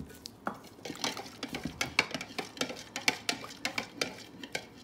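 Metal spoon stirring liquid jello in a plastic jug, clinking rapidly against its sides, several clinks a second.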